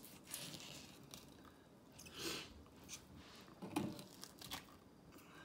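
Knife filleting a crappie on a plastic cutting board: a few separate faint, crunchy, wet slicing cuts as the blade works along the rib cage.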